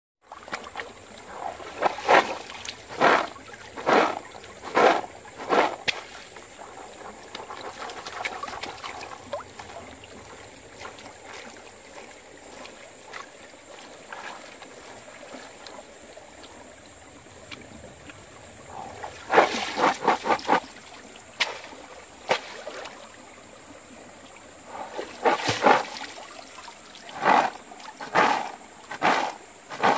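Peanuts in their shells being swished and scrubbed by hand in a plastic basket in a shallow stream: repeated sloshing splashes about one a second in three bouts, with the stream trickling between them. A thin, steady high whine runs underneath.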